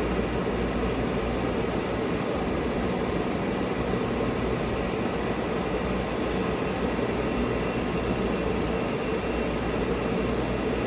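Myford MG12 cylindrical grinder running, a steady even hum from its motors and spindle.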